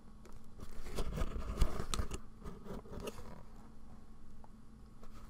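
Cardboard mailer box handled and its tuck-flap lid opened: a scatter of light taps, scuffs and cardboard rubbing, mostly in the first half.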